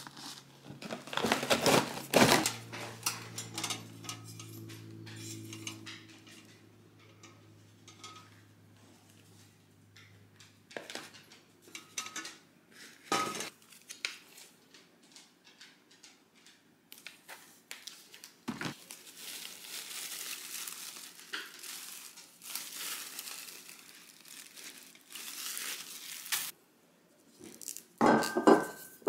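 Packaging being handled: paper and cardboard rustling and sliding, with scattered light clinks of glass. Near the end, glass bottles knock as they are set down on the counter.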